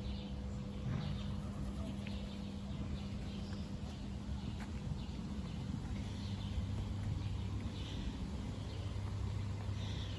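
Outdoor ambience: scattered short bird chirps over a steady low hum, which drops in pitch about halfway through.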